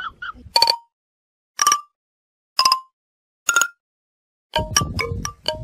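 Background music: four short struck notes about a second apart with silence between them, then a quick run of short notes stepping down in pitch, starting near the end.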